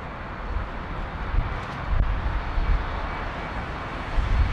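Distant jet airliner's engines running with a steady roar on the runway, growing louder about two seconds in, with wind buffeting the microphone.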